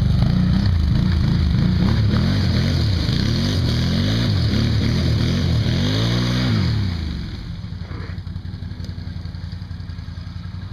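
ATV engine revving up and down as the four-wheeler pulls away through the mud, the note rising and falling several times. About seven seconds in it drops to a quieter, steady engine drone.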